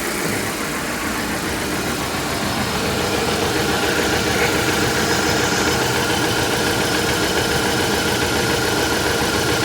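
Volvo XC90 plug-in hybrid's four-cylinder petrol engine running at idle with a misfire, shaking badly, a fault the owner puts down to a head gasket. The sound grows a little louder about three seconds in, then holds steady.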